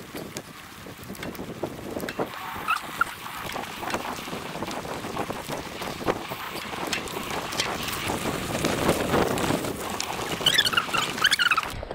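Mountain bike rolling fast down a dirt singletrack: tyre noise and wind on the camera microphone, with frequent rattles and knocks from the bike over bumps, growing louder as it picks up speed.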